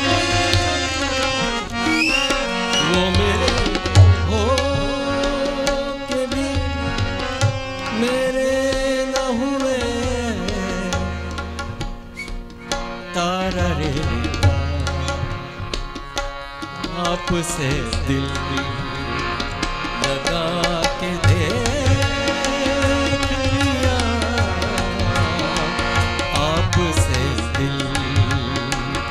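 Harmonium and tabla playing together in Indian light-classical style: sustained reedy harmonium chords and melody over the tabla's rhythmic strokes, with deep bass-drum beats.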